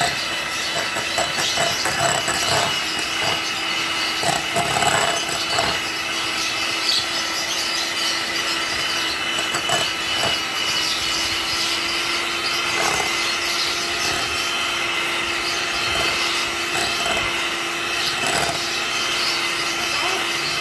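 Electric hand mixer running steadily, its beaters whipping dalgona coffee mixture that is not yet stiff, with occasional knocks.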